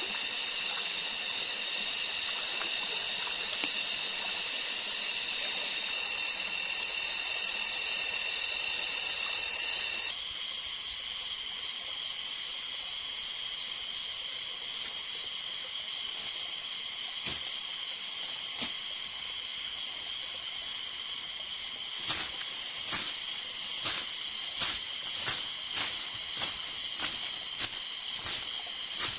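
Steady high-pitched drone of forest insects. About two-thirds of the way in, sharp knocks begin, about two a second and gradually quickening.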